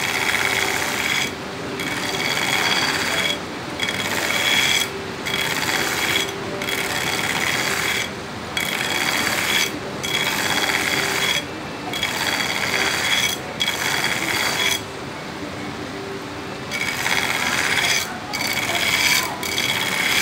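Belt grinder running with a steel knife blade pressed against the abrasive belt in repeated grinding passes, throwing sparks; the grinding drops away briefly about every one and a half to two seconds as the blade is lifted and repositioned, with a longer pause about three quarters of the way through. The blade is being ground to a distal taper, thinning toward the tip.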